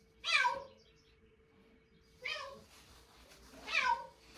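A domestic cat meowing loudly three times, each meow falling in pitch at the end, about a second and a half apart. It is a crying that is different from its meowing at home.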